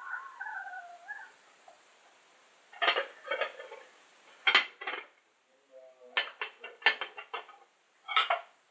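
Clinking and knocking of dishes and cutlery: several clusters of quick taps and clatters, the busiest a rapid run about six seconds in. In the first second, a short wavering pitched sound like a voice.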